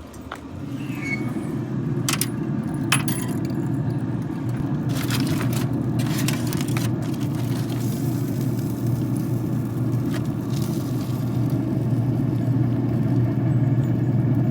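A steady low mechanical rumble starts about half a second in and holds at an even level. Metallic jingling and clicks come in now and then over it, mostly in the first half.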